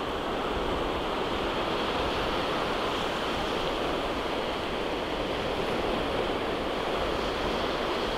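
Small sea waves washing onto a sandy beach, a steady wash of surf.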